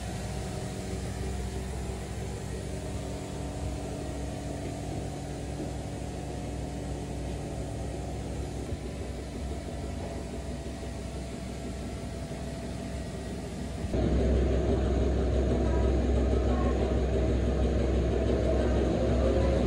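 Steady low mechanical hum with a constant drone, becoming louder and heavier in the bass after an abrupt change about fourteen seconds in.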